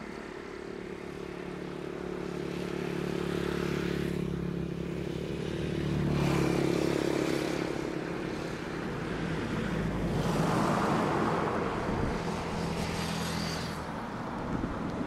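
Airliner jet engines heard from beside the runway: a steady low engine hum under a rushing jet noise that swells and fades several times as a jet lands and rolls out.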